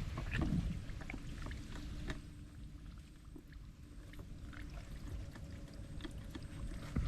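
Steady low rumble of wind on the microphone, with scattered light rustles and clicks from movement through the vegetation.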